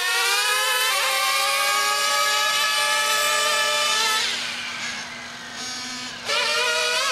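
Radio-controlled cars running flat out: a high, buzzing motor whine that holds its pitch, fades away for a couple of seconds past the middle, then comes back suddenly and climbs again.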